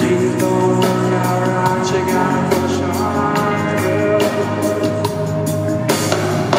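Live reggae band playing with a steady beat: drums, electric bass, electric guitar and keyboards, with a male lead vocal at the microphone.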